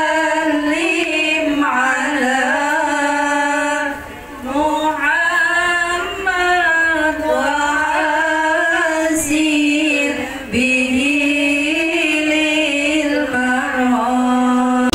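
A woman singing unaccompanied into a microphone: long held, ornamented notes that slide and waver, with short breaks about four seconds in and again about ten and a half seconds in.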